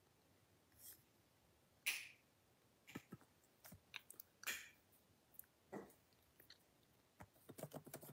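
Faint, scattered taps of fingers on a phone's touchscreen while a search is typed, with a quick run of taps near the end.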